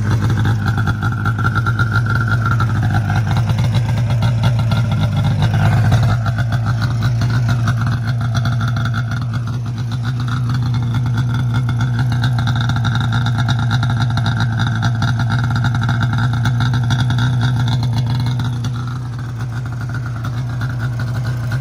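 2002 Arctic Cat ZR500 snowmobile's two-stroke engine running steadily just after a cold start, through an aftermarket exhaust can. The note holds at one even pitch, dipping slightly in loudness near the end.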